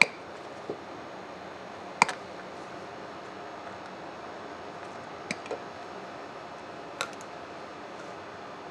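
Side cutters snipping the insulated wires off an electric motor's old switch: a few short sharp snaps, one at the start, a louder double snap about two seconds in, two close together a little past five seconds and one near seven, over a faint steady hiss.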